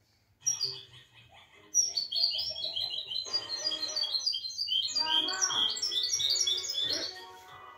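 Small caged songbird singing: a couple of short calls, then from about two seconds in a fast, varied run of high chirps and twitters that eases off near the end.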